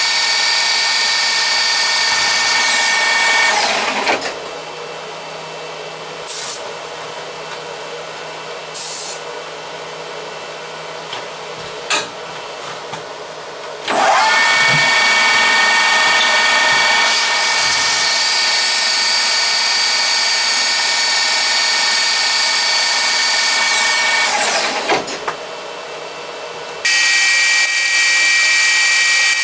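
Handheld burnishing/polishing machine with a sanding drum running at speed against an aluminium tube turning in a lathe, a steady high motor whine. It is switched off about 3.5 s in and winds down, leaving a lower steady hum with a few clicks, then runs again for about ten seconds and winds down once more. Near the end the sound changes abruptly to another steady machine whine.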